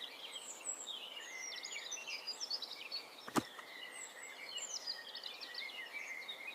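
Background birdsong: many small birds chirping and trilling continuously, with a single sharp click about three and a half seconds in.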